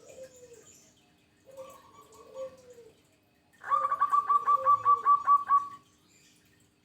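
Zebra dove (perkutut) cooing: a short phrase of falling coos at the start and another about 1.5 s in, then about two seconds of loud, rapid pulsed cooing, roughly five notes a second.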